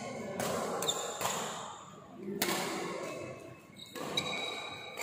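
Badminton rackets striking the shuttlecock several times during a rally, sharp hits with a short ring of hall echo, and high shoe squeaks on the court floor near the end.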